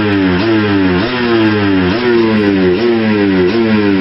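Two-stroke TPI (fuel-injected) dirt bike engine held at steady throttle but surging erratically: the revs jump up and sag back about twice a second. The hunting comes from a blocked crankcase pressure sensor tube fitting, which upsets the fuelling.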